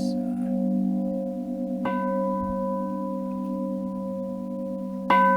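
Bronze Buddhist temple bell ringing with a long, steady hum that pulses slowly, struck on its side again about two seconds in and once more, louder, near the end; each strike brings in higher ringing tones over the sustained low ones.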